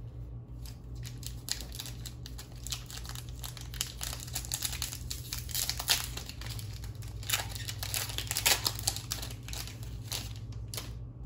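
Foil wrapper of a trading card booster pack crinkling and tearing as it is opened, a dense run of irregular crackles that is thickest about seven to nine seconds in.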